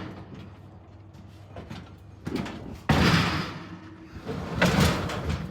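A sudden loud slam about three seconds in, followed by another loud noise near the end, over a steady low hum.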